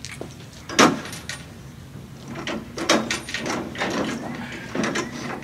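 Irregular knocks and clatters, the loudest about a second in, from the antenna element being handled up onto the scissor lift.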